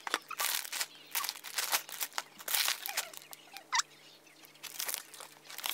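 Crinkly plastic snack bags and packaged boxes rustling and knocking as they are lifted out of a cardboard box, in a quick run of short rustles.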